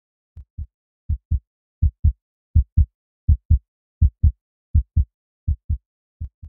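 Heartbeat sound effect: nine deep double thumps, lub-dub, at about 80 beats a minute, swelling in and then fading out.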